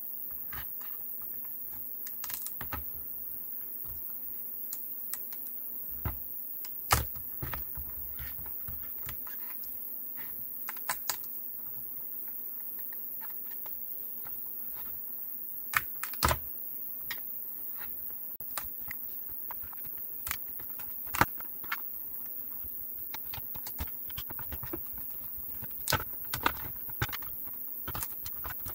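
Scattered small plastic clicks and knocks, with a few louder knocks, as hands press on and lift the plastic cell holder of a Ninebot Segway Mini's 18650 lithium-ion battery pack in its housing. A faint steady low hum runs underneath.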